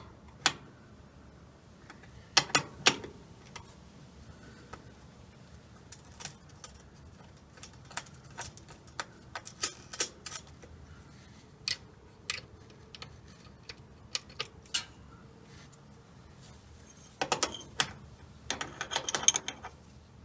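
Irregular metallic clicks and clinks of hand work on a B&M shifter cable's threaded adjuster and linkage at a TH350 transmission's shift lever, with a denser run of clinks near the end.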